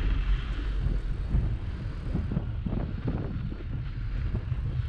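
Wind rumbling over a bike-mounted GoPro's microphone while riding, with irregular crunching and rattling from bicycle tyres on packed snow.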